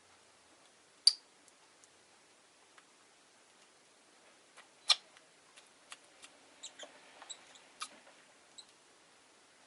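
Rosy-faced lovebirds making short, sharp chirps and clicks at irregular intervals: one loud chirp about a second in, a louder one near the middle, then a quick scatter of smaller chirps and clicks.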